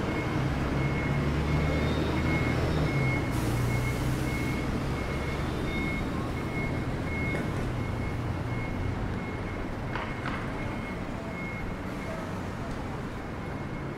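Street traffic: a heavy vehicle's engine rumbling low and fading away, with a high electronic beep repeating evenly about once a second, like a reversing alarm. A short hiss sounds about three and a half seconds in.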